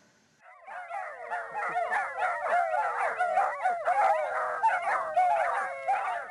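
A litter of newborn Basset Hound puppies squeaking and whimpering together: many high, overlapping cries, starting about half a second in.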